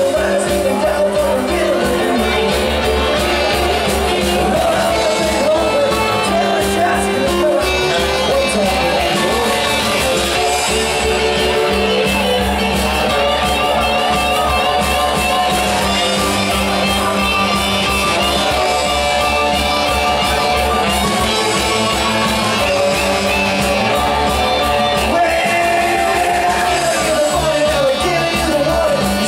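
Live rock and roll band playing, with saxophones and electric guitars over keyboard.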